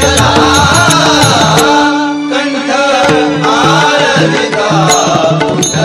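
Marathi abhang devotional music: a melodic line rising and falling over steady percussion. The low drum layer drops out for about a second midway, then comes back.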